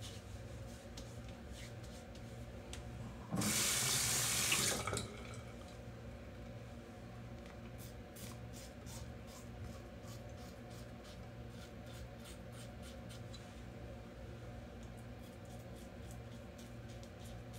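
A water tap runs for about a second and a half a few seconds in. Then an open-comb double-edge safety razor scrapes across stubble in a long run of short strokes.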